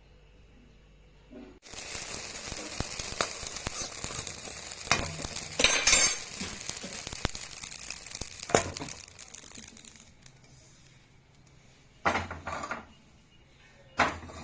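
Amaranth (rajgira) seeds popping as they puff in a hot pan: a dense crackle of many tiny pops begins about a second and a half in, then thins out and fades. Two short, louder clattering sounds come near the end.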